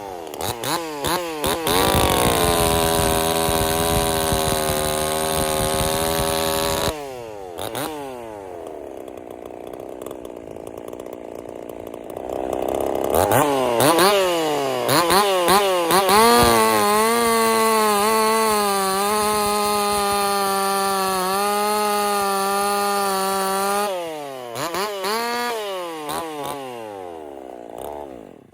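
Ported Husqvarna 50 two-stroke chainsaw, fitted with a 372 carburetor, revving up and held at full throttle through two cuts into wood. It drops back to idle between the cuts, blips the throttle after the second, and stops at the end.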